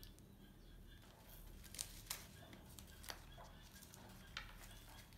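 A baby macaque chewing lotus seeds, heard as a few faint, crisp crunching clicks over a low steady hum, otherwise near silence.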